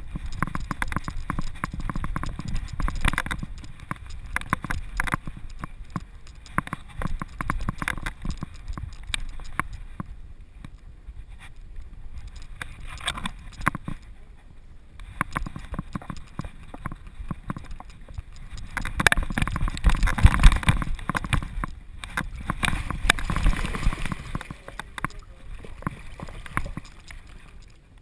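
A dog's footsteps on wooden bridge planks and then a dirt trail, heard through a camera harness on its back, with the harness rattling and wind rumbling on the microphone. A louder rush of noise comes about twenty seconds in.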